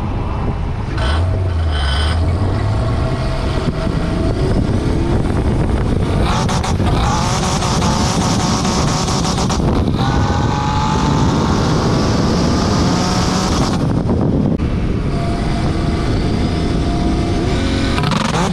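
Nissan 240SX S13 being driven hard, its engine pitch rising steadily as it accelerates, broken by short dips at gear changes about ten and fourteen seconds in.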